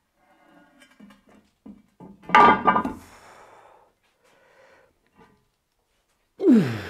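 Heavy metal headstock cover of a 1A616 lathe being worked loose and lifted off: light knocks, then a loud metallic clunk with a short ring about two seconds in. Near the end there is a grunt of effort, falling in pitch, as the heavy cover comes up.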